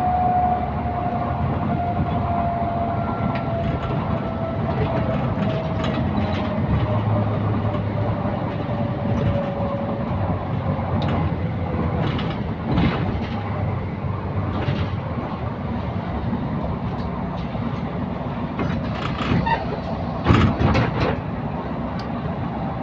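Interior ride noise of a Wright-bodied Volvo double-decker bus on the move: a steady rumble with a whine that slowly falls in pitch over the first ten seconds. Scattered rattles and knocks come through, with a loud cluster just after twenty seconds.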